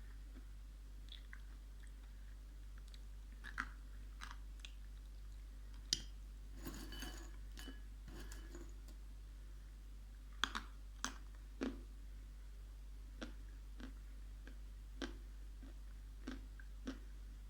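Chewing dry edible clay close to the microphone: irregular sharp crunches with quieter chewing between, and a quick run of crunches about seven seconds in.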